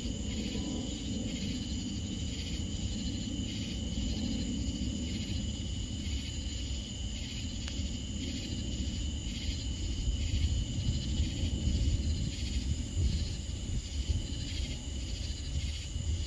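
Night insect chorus of crickets: a steady high trill with a second call pulsing about twice a second, over a low rumble.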